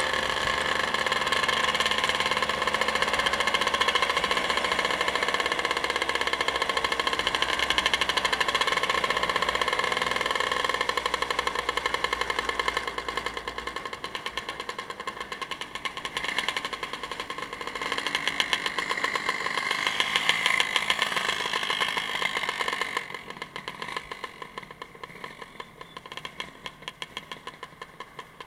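Motorcycle engine running steadily with a fast, even firing pulse; it goes quieter about three-quarters of the way through as the throttle eases off.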